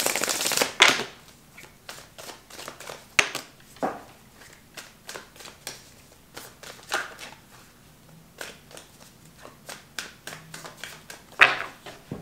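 Deck of tarot cards shuffled by hand: a loud riffle as the cards cascade at the start, then a long run of soft card taps and slides, and another short burst near the end.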